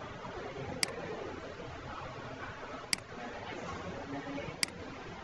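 Three sharp computer mouse clicks, spaced about two seconds apart, over a steady background hiss.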